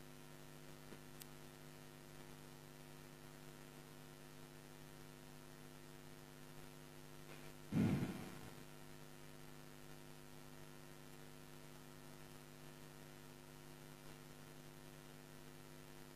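Steady electrical mains hum from the studio sound system, a low buzz of evenly spaced tones. A single short, louder sound breaks in about eight seconds in.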